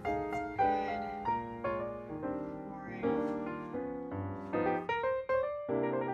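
Background piano music, a steady stream of struck notes and chords.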